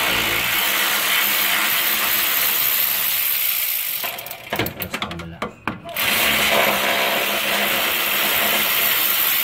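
Handheld power tool running in two long bursts, about four seconds each, with a short pause and a few clicks between, as a bolt is taken off under the car's front suspension.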